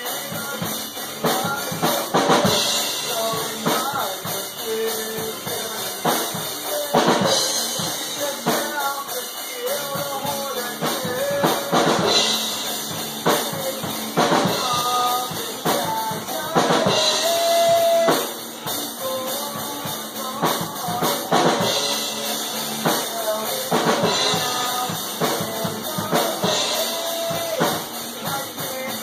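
A band rehearsing: a drum kit played steadily, with kick and snare hits throughout, and a vocalist singing into a microphone over it through a PA.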